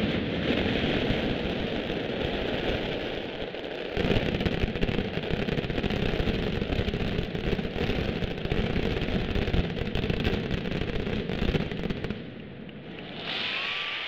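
Mascletà firecracker barrage: a dense, unbroken rattle of gunpowder firecrackers (masclets) going off. It grows heavier about four seconds in and dies down shortly before the end.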